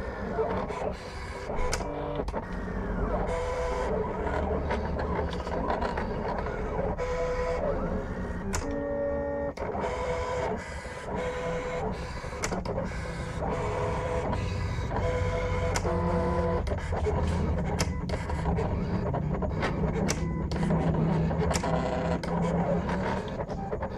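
Silhouette Portrait cutting plotter cutting a phone-skin sheet. Its motors whir in short whines that step up and down in pitch as the blade carriage shuttles and the rollers move the sheet, with frequent clicks.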